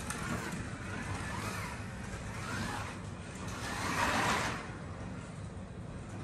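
Carrera 1:32 Evolution Pontiac Firebird Trans Am analog slot car running laps on plastic track: its small electric motor whines, rising and falling in pitch as it speeds up and slows. The run is loudest about four seconds in.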